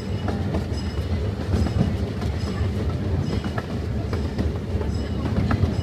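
Ride-on park train running, heard from inside an open wooden passenger car: a steady rumble with frequent clicks and clatter of the wheels on the track.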